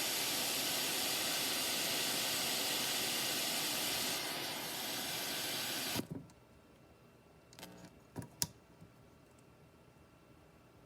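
Steady, loud hissing white noise from a repaired IFM Dunst's noise output. It cuts off suddenly about six seconds in, followed by a few sharp clicks.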